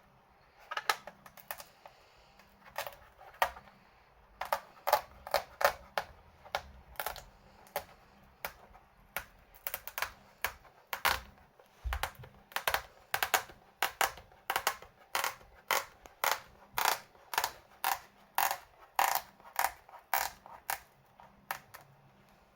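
A long run of sharp clicks and taps, irregular but about two a second, starting about a second in and stopping near the end.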